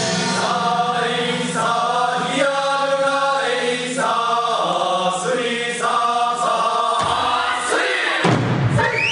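Okinawan eisa music: voices chanting a folk melody over a low held tone, with drum strikes. The low tone drops out about seven seconds in, and rising calls and stronger drumming come in near the end.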